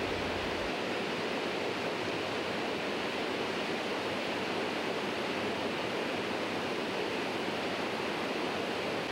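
Steady rush of river water, an even noise that holds at one level throughout.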